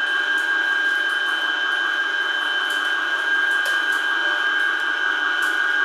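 Kuvings vertical slow juicer running with its frozen-dessert kit, pressing frozen banana into ice cream: a steady motor whine with a high tone held throughout.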